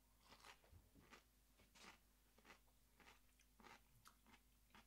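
Faint, irregular crunching of Japanese cucumber salad being chewed, about two crunches a second.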